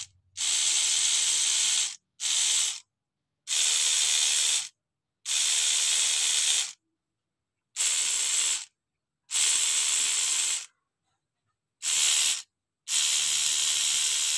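A homemade rotary tattoo machine, driven by an old DVD drive motor, buzzing in nine short runs of about half a second to a second and a half each. It starts and stops abruptly each time, as it is switched on and off.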